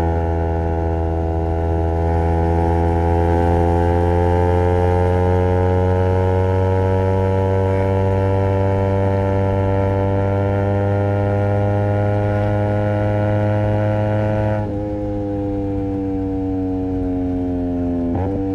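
Honda CBR250RR's parallel-twin engine through a Project 79 slip-on exhaust, pulling in gear under steady throttle with its note slowly rising in pitch. About fourteen seconds in, the note dips in pitch and loudness and then eases gently lower, with a brief change in pitch near the end.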